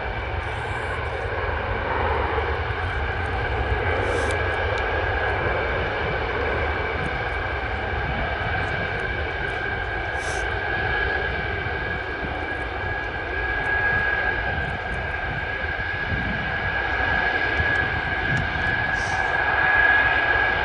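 Antonov An-124's four D-18T turbofan engines running at taxi power as the freighter taxis: a steady whine over a deep rumble. The whine grows stronger and the sound gets a little louder toward the end.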